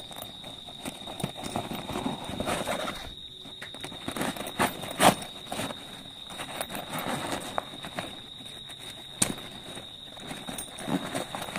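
Hands handling a padded cordura rifle bag: irregular rustling and scraping of the fabric, with a few sharp knocks, the loudest about five seconds in and another about nine seconds in. A steady high-pitched whine runs underneath.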